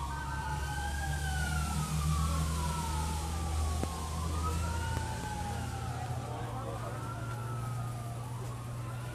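Emergency-vehicle siren wailing: long sweeps that rise quickly and fall slowly, overlapping, over a steady low hum.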